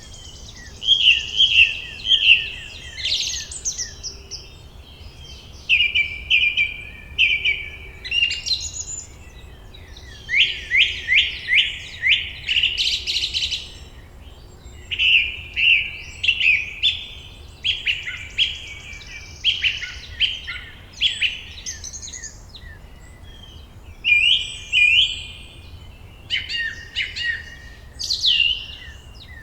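Songbirds singing: phrases of rapid, repeated high chirps and trills come every few seconds, each a couple of seconds long, over a faint low background noise.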